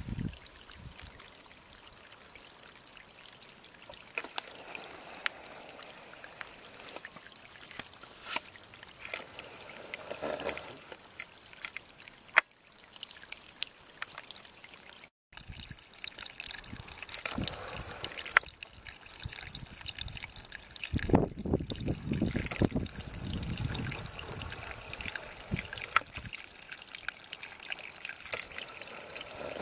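Shallow mineral spring water trickling along a narrow stream channel, with scattered sharp clicks. There is a stretch of louder low rumble about two-thirds of the way through.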